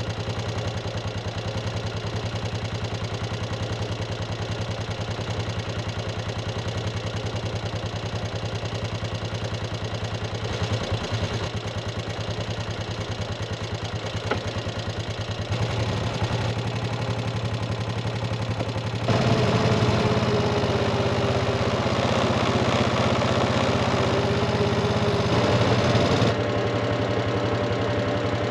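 Kubota tractor's diesel engine running steadily. About 19 s in it gets louder, with a wavering whine added, and eases back a couple of seconds before the end.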